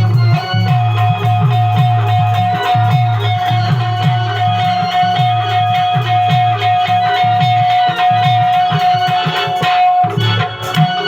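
Instrumental interlude of a Marathi bhajan: organ playing a melody over one long held note, with a dholki drum keeping a steady beat. The held note breaks off briefly about ten seconds in.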